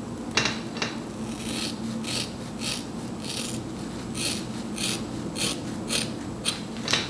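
Hair-cutting shears snipping through the dry ends of a kinky curly wig, about a dozen crisp cuts, roughly one every half second.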